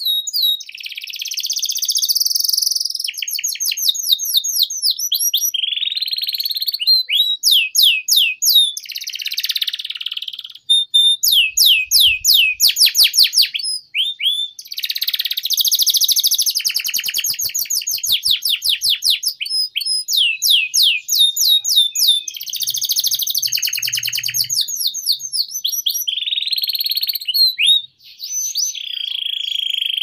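Domestic canary singing a long, continuous song of fast rolling trills and rapid repeated high notes, with only short pauses between phrases.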